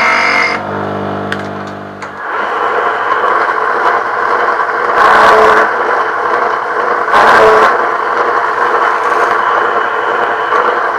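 A scroll saw runs down after cutting Kydex, then a benchtop drill press runs steadily while its bit bores through a Kydex holster shell, with a few brief louder bursts as the holes are drilled.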